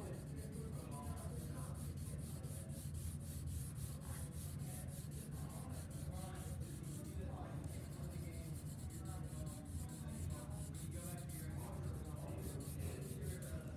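A drawing tool rubs back and forth on paper in quick, repeated short strokes as a sphere is shaded, with a steady low hum underneath.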